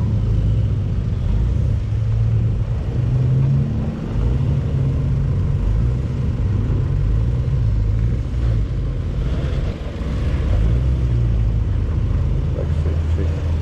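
Off-road 4x4 engine running at low revs, its pitch rising and falling as the throttle is worked through the mud, with a brief dip around four seconds in and again near ten seconds.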